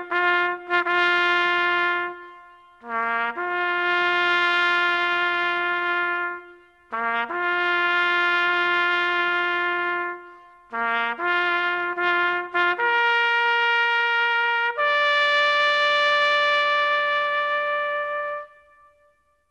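A solo trumpet plays a slow call in long held notes, each phrase opening with a few quick short notes. The last and highest note is held for several seconds and then fades out.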